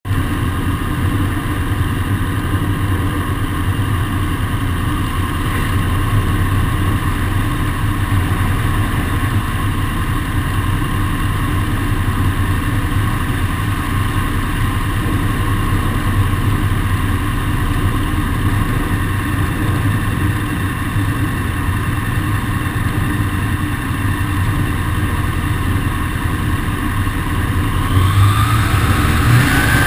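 Zenair CH 701 light aircraft's piston engine idling on the ground, propeller turning, running steadily; in the last couple of seconds the revs rise a little.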